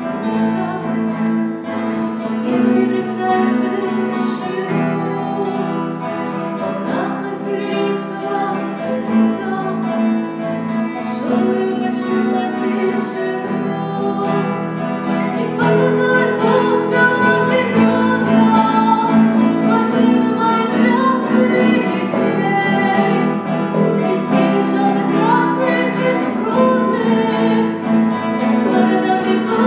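Small band playing a song live: strummed acoustic guitars, electric bass and keyboard, with a woman singing lead that comes through more strongly from about halfway.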